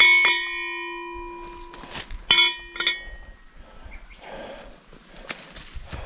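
Metal bear-deterrent bell hung beside the trail, struck twice at the start and twice more about two seconds later. Each strike rings on and fades slowly. A smaller, higher ding follows about five seconds in.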